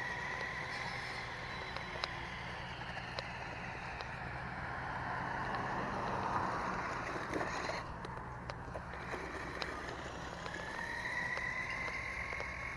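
Toy-grade RC truck's electric motor and gears whining as it drives at full throttle, the pitch sliding up and down. The whine drops away about eight seconds in, then rises again near the end, over a steady low hum.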